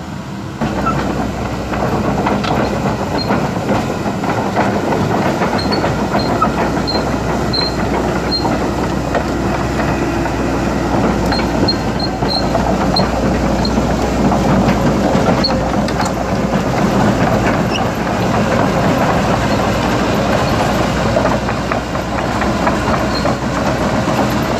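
Caterpillar 312D2 excavator travelling on its steel crawler tracks: a continuous clanking rattle of track links over the running gear, with the diesel engine running underneath. Faint short high squeaks come now and then.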